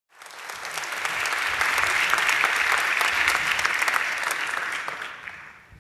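Audience applauding, swelling in over the first second and dying away near the end.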